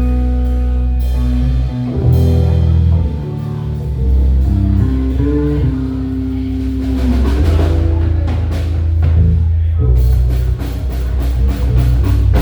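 Live band playing: electric guitar over bass, keys and drum kit, with a flurry of drum and cymbal hits near the end.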